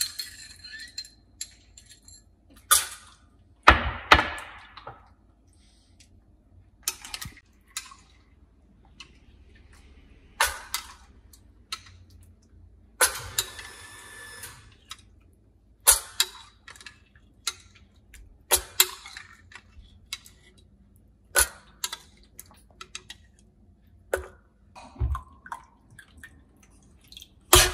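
Scattered clinks and scrapes of a metal spoon against a bowl as soaked nuts and grains are spooned out, with a few short splashes of water.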